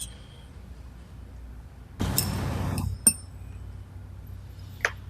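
Metal parts and hand tools clinking as the idler gear guard is unfastened from a thread rolling attachment. A harsh noise lasts about a second, starting about two seconds in, and is followed by two sharp metallic clicks.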